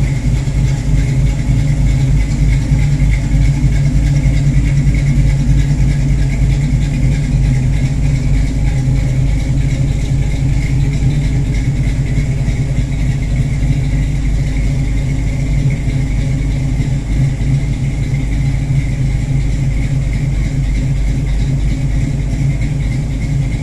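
Square-body Chevrolet pickup's engine idling steadily, a deep, even pulse with no revving.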